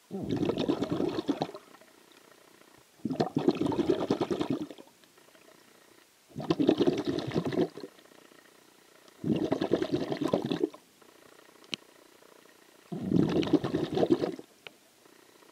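Exhaled breath bubbling out underwater close to the camera: five rushing bursts, each about a second and a half long, coming in a regular breathing rhythm about every three seconds.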